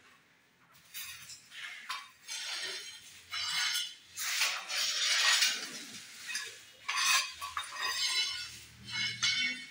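Ceramic tile pieces clinking and a trowel scraping mortar on a tile, in irregular bursts of up to about a second, with a few sharp knocks.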